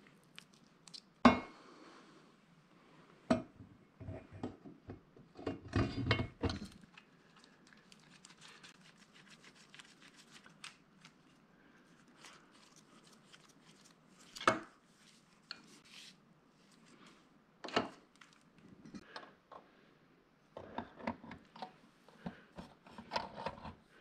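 Metal parts of an NP435 transmission being handled: scattered clinks and knocks with stretches of scraping and rattling. The sharpest knock comes about a second in, and a busier run of clinks comes near the end.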